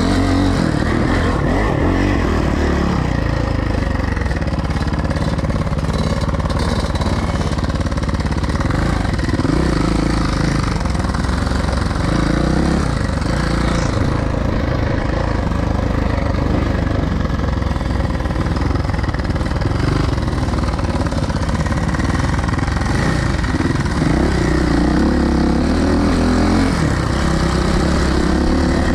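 Suzuki dirt bike engine running hard as the bike is ridden, its pitch rising and falling every few seconds with the throttle.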